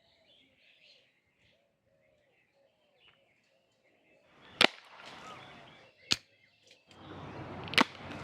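Three sharp cracks from a homemade bamboo toy pistol being fired: one just past halfway, one about a second and a half later, and one near the end, with rustling noise between them. Faint bird chirps come before the first crack.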